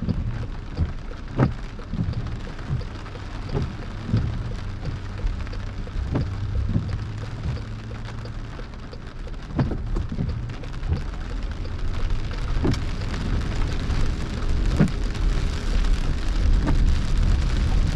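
Rain hitting the car's roof and windshield, heard from inside the moving car: scattered sharp drop hits over a steady low hum of engine and tyres. The hum grows louder over the last few seconds.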